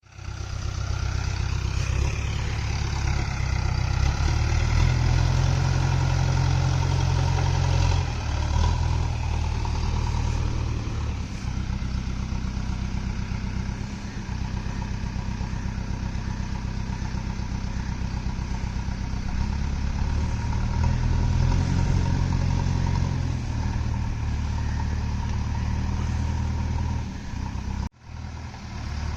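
JCB backhoe loader's diesel engine running, speeding up and settling back several times as the machine works. The sound breaks off briefly near the end, then picks up again.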